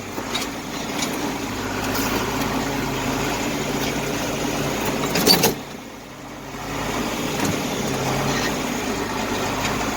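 A vehicle engine runs steadily. About five seconds in there is a brief louder burst, after which the sound drops off for a moment and then picks up again.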